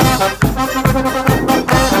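Brass street band playing live: trombones and trumpets carrying held notes over a steady beat of a little over two thumps a second.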